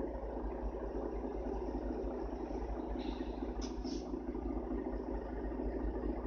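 Steady drone inside a 2001 Mercedes-Benz O530 Citaro city bus, its OM457 hLA six-cylinder diesel running with cabin and road noise. A couple of short high squeaks or rattles come about three to four seconds in.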